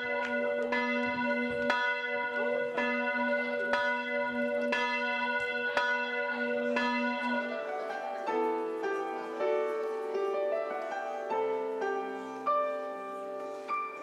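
Church bells ringing, several bells striking about once a second, until about halfway through. A piano then starts playing.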